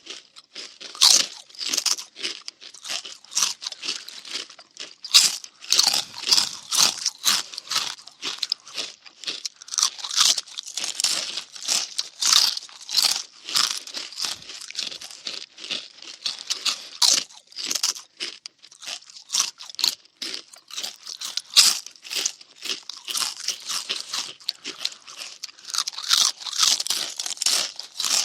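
Cartoon munching sound effect: rapid, irregular crunchy chewing bites, several a second without pause.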